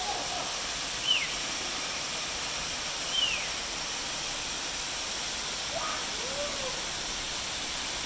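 Steady rush of water, with two short downward-sliding chirps about a second and three seconds in.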